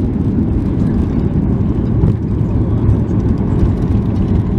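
Steady, heavy rumble inside the cabin of a Boeing 737-800 decelerating down the runway just after touchdown, with its ground spoilers deployed.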